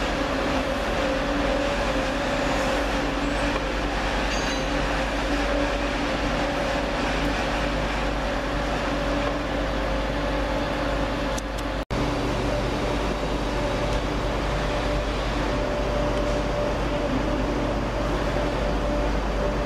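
Diesel engines of a CrossCountry Class 170 Turbostar multiple unit running as it moves slowly along the platform, a steady drone with two held tones. About twelve seconds in the sound cuts out for an instant and a steady diesel engine hum at a different pitch follows, from a yellow track maintenance machine.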